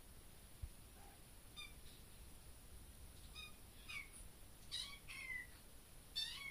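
Baby kitten meowing: a series of about six short, high-pitched meows, several falling in pitch, getting louder toward the end.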